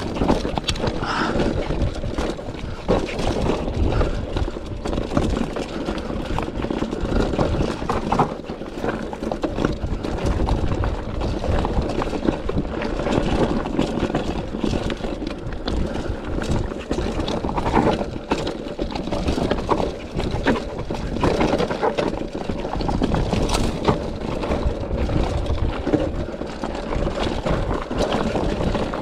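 Specialized Rockhopper hardtail mountain bike rolling downhill over rocky, gravelly singletrack: tyres crunching over loose stones, with many small knocks and rattles from the bike and a steady rumble of wind on the mounted camera's microphone.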